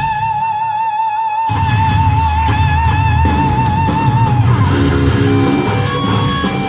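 Live hard rock band playing loud. A long held note with wide vibrato rings over the band, the drums and bass drop out for about a second just after the start and then crash back in. After about four seconds the held note ends and the electric guitar plays a riff of shorter notes.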